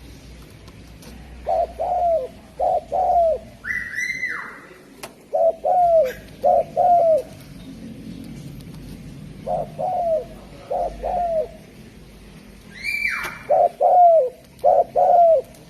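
Spotted dove (derkuku) cooing: four phrases of short, low, hooting notes, about four notes each, a few seconds apart. Twice, about 4 s and 13 s in, a louder, higher call slides down in pitch.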